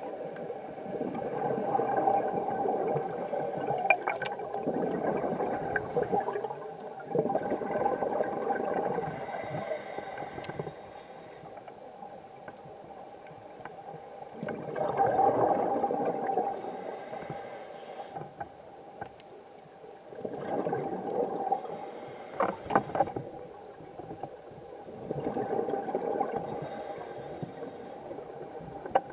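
A scuba regulator heard underwater as the diver breathes: a rush of gurgling exhaust bubbles on each exhale, coming about every five to six seconds, with a fainter hiss on the inhales between them. A faint steady hum runs underneath.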